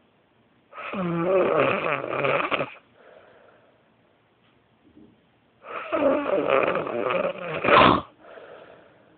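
Loud snoring from a sleeper: two long, loud snores about five seconds apart, each followed by a quieter breath out.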